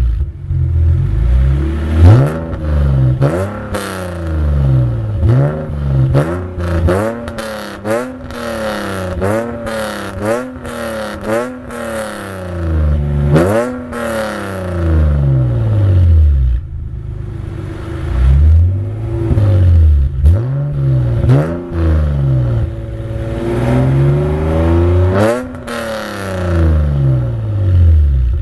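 BMW 330Ci E46's 3.0-litre straight-six, fitted with Schmiedmann headers and cats, straight pipes and a Bastuck exhaust, being revved in neutral: quick blips again and again, each rising and falling in pitch, with a short spell of settled idle in the middle. Sharp crackling pops come from the exhaust as the revs fall.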